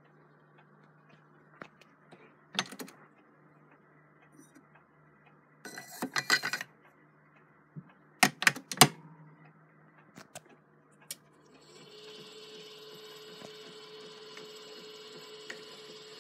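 Cylinder phonograph being handled: clicks and clatter as a Blue Amberol cylinder is fitted on the mandrel and the mechanism is set, including a few sharp loud clicks. About twelve seconds in, the phonograph's spring motor starts running with a steady hum and a whine.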